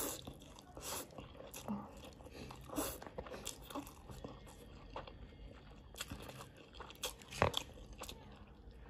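A person eating hot dry noodles dressed in sesame paste: several short, sharp slurps as noodles are drawn into the mouth, with wet chewing between them.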